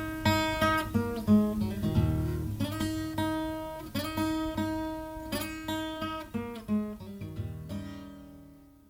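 Acoustic guitar playing the closing bars of a Piedmont blues, picked notes ringing over a bass line, fading out near the end.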